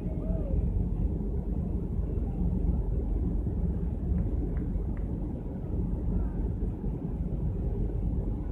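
Low, gusting rumble of wind buffeting the microphone on the open top deck of a cruise ship under way.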